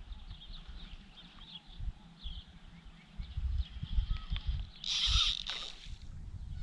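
A short splash about five seconds in as the hooked fish thrashes at the surface near the bank, over wind rumble on the microphone and faint high chirping.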